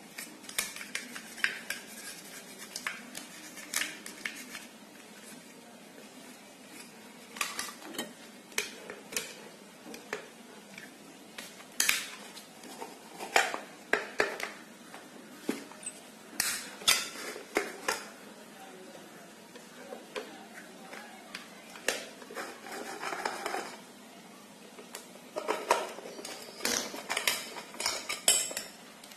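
Irregular metallic clicks, taps and scrapes of a screwdriver and small parts against the metal housing of a ceiling fan motor as it is taken apart, coming in scattered clusters.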